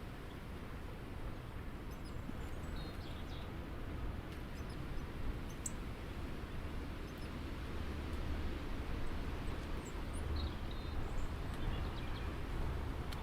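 A steady low outdoor rumble with a few short, faint bird chirps, about three seconds in and again around ten seconds in, and a single sharp tick near the middle.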